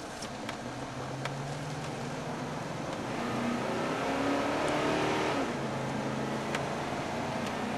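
Chevy Avalanche 2500 V8 engine and road noise heard from inside the cab as the truck accelerates. The engine note climbs in pitch and gets louder for a couple of seconds, then drops back about two-thirds of the way through as the transmission shifts up. A few faint ticks sound over it.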